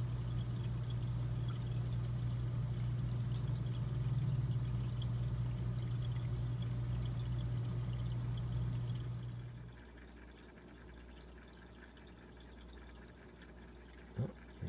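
Aquarium air pump and bubbler running: a steady low hum under water bubbling and trickling. The hum drops away about ten seconds in, leaving faint bubbling.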